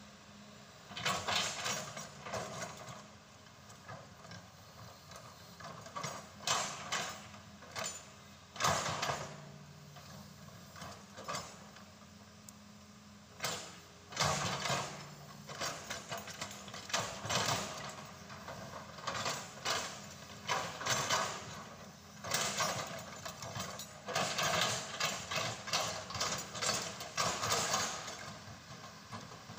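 Irregular metallic clanking and scraping, a clank every second or two, over a faint steady low machine hum that comes and goes.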